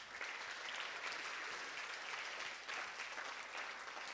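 Audience applauding: many people clapping at once, holding steady.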